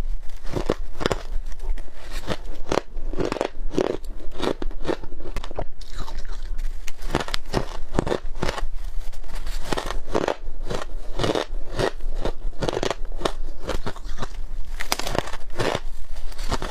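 Someone biting and chewing soft, squeaky freezer frost and shaved ice, close to the microphone: a steady run of crunches, about two or three a second.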